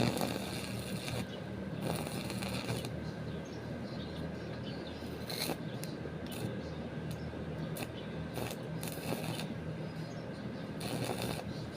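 Repeated short scraping and rustling sounds of hand work, over a steady low hum.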